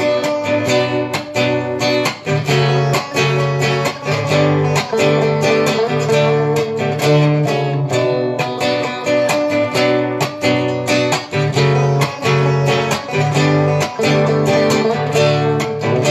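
Instrumental break of a song: strummed guitar playing chords with a steady beat, without singing.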